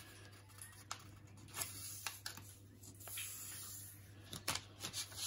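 A sheet of A4 paper being folded and creased by hand: faint rustling and crinkling with a few soft ticks, over a low steady hum.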